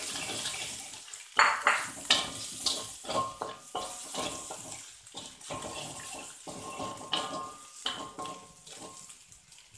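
Wooden spatula scraping and stirring egg and chicken around a metal wok in irregular strokes, the wok ringing faintly under the strokes.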